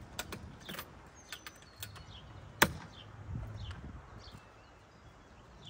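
Handling noises from closing a roof top tent as pressure is applied on top of the folded tent: light clicks and knocks, with one sharp click about two and a half seconds in. Birds chirp in the background.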